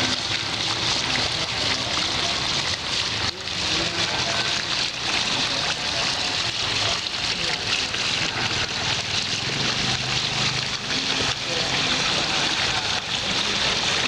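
Water of a handmade model waterfall pouring steadily and splashing into the foamy pool below.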